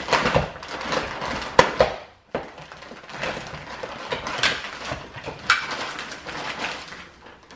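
Clear plastic bag crinkling and rustling in irregular bursts as a metal drawer-slide rail is pulled out of it, with a couple of sharp clicks from the rail being handled about one and a half seconds in.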